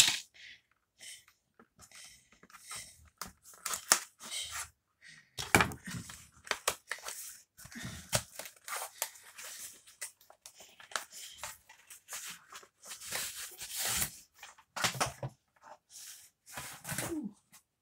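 A cardboard book mailer being torn open by hand: irregular short tearing and rustling sounds of cardboard and paper, with pauses between them.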